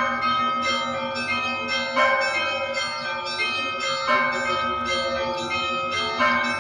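Russian Orthodox church bells ringing: a large bell struck about every two seconds, with smaller bells chiming between its strokes and the tones ringing on over one another.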